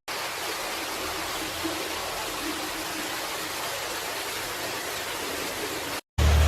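Steady rushing hiss of storm water, from torrential rain or flooding, with little low rumble. It cuts off suddenly near the end.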